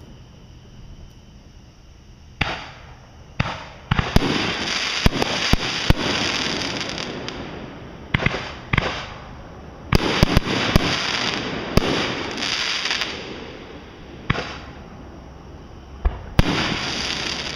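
Fireworks going off in clusters of sharp bangs, each cluster trailing off over a few seconds. The densest volleys come about four seconds in and again around ten seconds in, with the last bangs near the end.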